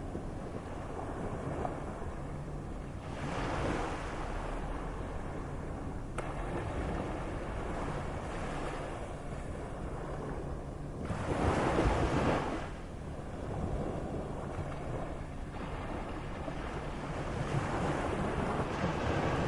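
Moderate sea waves: a steady rush of surf that swells as waves break a few seconds in and again about two-thirds through, then builds once more near the end.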